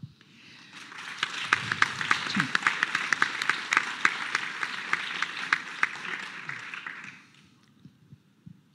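Audience applauding. The clapping builds about half a second in, holds steady, and dies away about seven seconds in.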